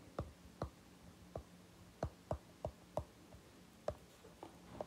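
About a dozen faint, irregularly spaced light clicks, a stylus tapping and working on a tablet's glass screen, over a faint steady hum.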